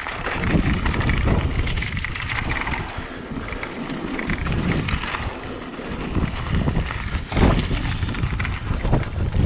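Mountain bike riding fast down a loose slate-gravel trail: tyres crunching over stones and the bike clattering over bumps, with wind buffeting the microphone as a low rumble that eases for a couple of seconds midway.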